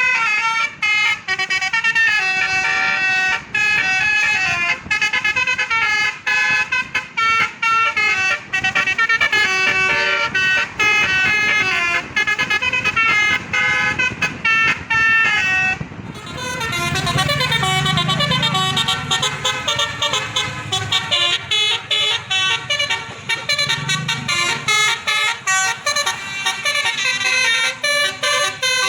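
Bus-mounted DAV telolet basuri musical air horn playing a melody of quick, stepped horn notes. About halfway through the tune changes to a denser, higher run of notes, and a low engine rumble comes in underneath.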